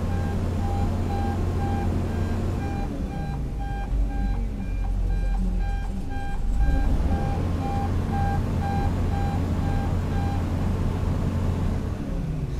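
Warning beeper of a heavy tracked machine, most likely the XCMG rotary drilling rig as it turns and moves, sounding evenly spaced beeps over the steady low rumble of diesel engines; the beeping stops near the end.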